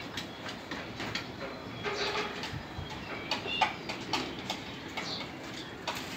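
Caged mockingbirds: an irregular run of short, sharp clicks with a few brief chirps.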